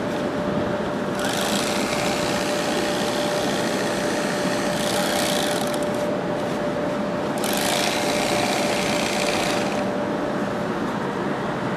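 Handheld bag-closing sewing machine stitching the tops of filled woven sacks shut. It runs in three bursts: a long one about a second in, a short one around the middle, and another long one after it. Underneath is a steady mechanical hum with one constant tone.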